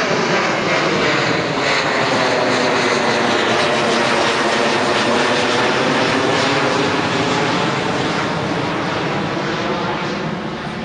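Twin-engine jet airliner climbing out after takeoff: a steady, loud jet-engine roar with a slow sweeping, whooshing quality, easing off slightly near the end as the plane climbs away.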